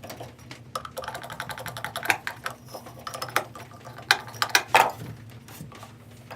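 Bandsaw on a test run with a new drive belt and its wheel refitted: a steady low hum under fast, irregular clicking, with several louder knocks around the middle.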